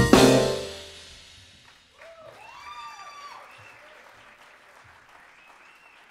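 A rock band's closing chord and drum hit ring out and fade away over about a second, then faint audience applause with a few cheering shouts.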